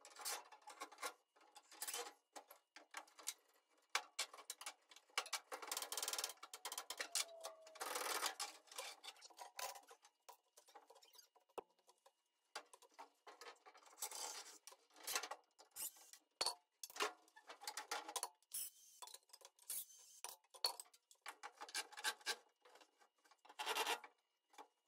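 Faint, irregular scraping, rubbing and light clattering of hand work inside a metal truck toolbox, with scattered small knocks.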